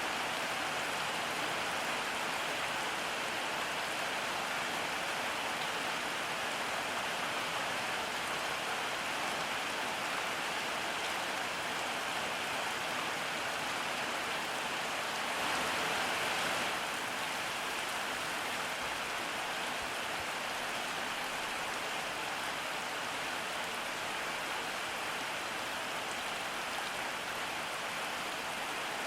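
Steady rainfall, an even hiss of drops that briefly swells a little louder about halfway through.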